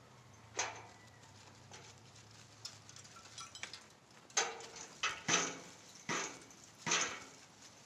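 Metal hay ring panels clanking as they are shifted and knocked together to line up their joints: about six sharp metallic clanks, one near the start and the rest clustered in the second half.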